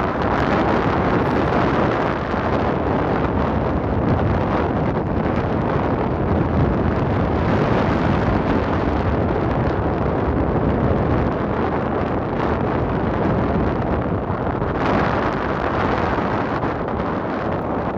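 Wind buffeting the microphone: a steady, loud rushing noise with a low rumble underneath.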